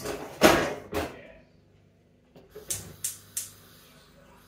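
A saucepan set down on a gas hob's grate, clattering three times, then the hob's spark igniter clicking three times in quick succession.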